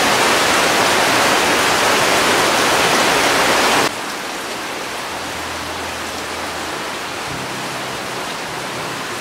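Heavy rain falling, a steady dense hiss. It drops to a lower, steady level about four seconds in.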